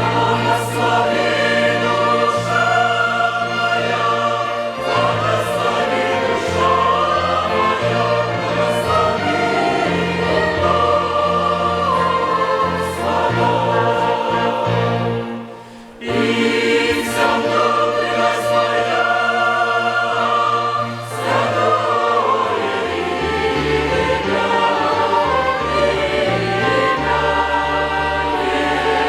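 Mixed choir singing a hymn with a string orchestra accompanying. The music drops away briefly about halfway through, then the choir and strings come back in.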